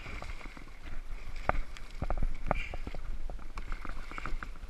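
Irregular clicks, knocks and splashes as a hooked striped bass thrashes at the surface beside a plastic kayak while it is hand-lined in, over a steady low rumble of wind on the microphone.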